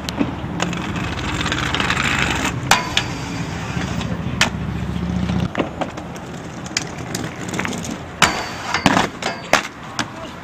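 Inline skates rolling on concrete, with a series of sharp clacks and knocks of wheels and frames hitting the ground, several close together near the end. A vehicle engine hums steadily underneath and stops about five and a half seconds in.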